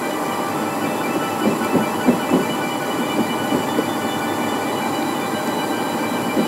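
Airliner cabin noise while taxiing: a steady rolling hum with faint steady whining tones, and low thuds from the landing gear rolling over pavement joints, a quick run of them about two seconds in.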